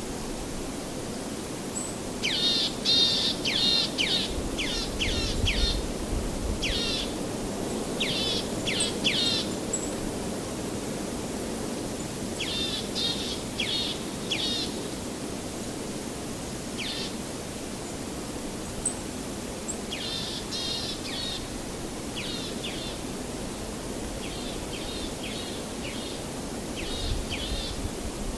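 Songbirds calling in quick series of short, high, falling chirps, the series coming every few seconds, over a steady low background rush.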